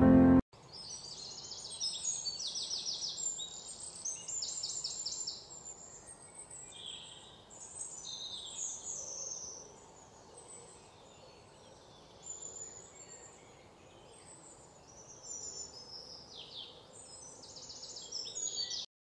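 Songbirds chirping, with rapid repeated high trills and quick falling notes coming and going; the sound cuts off abruptly near the end.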